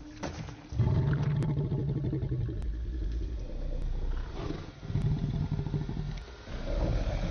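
Deep, rough growls of a giant mutated gray wolf, a film creature sound effect: two long growls, one starting about a second in and another around five seconds in, with a third building near the end.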